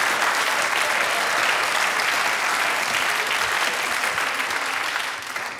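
Theatre audience applauding, a dense, steady clapping that begins to die down near the end.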